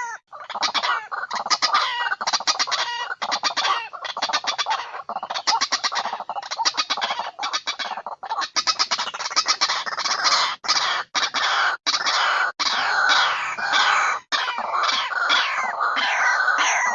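Birds calling with rapid clucking and cackling notes, chicken-like, sounding almost without pause, with several abrupt short breaks.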